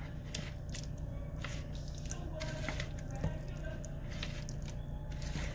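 Spatula working chicken breast into a thick yogurt marinade in a plastic bowl: soft, irregular wet squelches, over a steady low hum.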